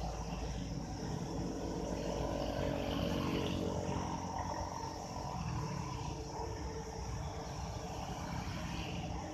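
Steady wind rumble on the microphone, with the hum of a distant motor vehicle's engine swelling and fading between about two and five seconds in.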